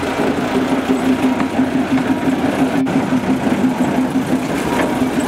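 Diesel engine of the small forest-railway locomotive running at a steady, even hum, with a momentary break in the sound just under three seconds in.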